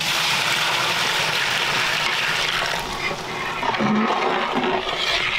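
Boiled water poured into a pan of butter-fried onion, tomato and spice masala: a steady gushing pour that starts suddenly.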